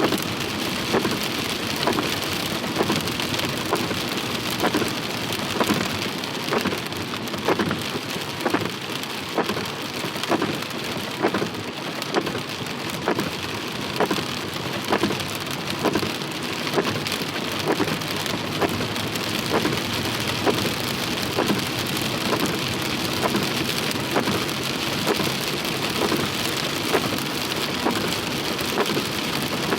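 Heavy rain falling steadily, with a soft regular knock a little more than once a second.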